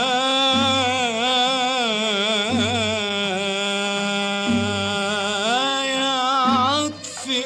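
Old Arabic song recording from 1950 playing: a long, ornamented melodic line with wavering pitch over a low bass note that pulses about every two seconds.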